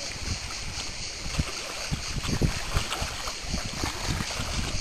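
Gusty wind rumbling on the microphone over shallow sea water lapping and splashing at a rocky shoreline as a dog wades through it.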